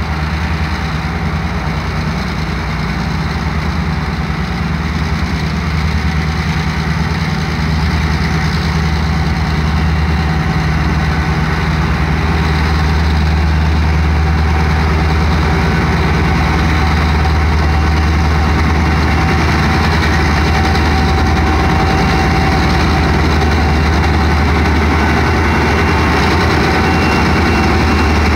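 EMD GP40-2 and MP15E diesel locomotives running as they approach and pass at the head of a freight train: a steady deep engine drone that grows louder as they draw near.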